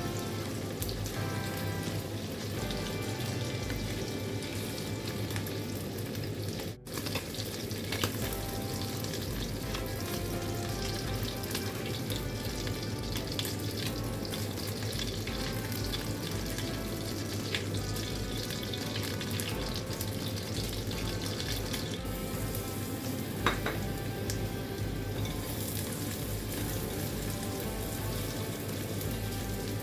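Oil sizzling in a wok as chicken livers fry and are stirred with a silicone spatula, later chopped garlic frying, with a couple of sharp taps.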